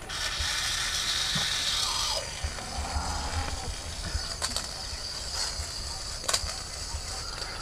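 Mini RC stunt car's small electric motor whirring, its wheels spinning against the clear plastic ball it has been shut inside. The whirr is loudest for the first two seconds, then settles into a steadier high whine with a few sharp plastic clicks.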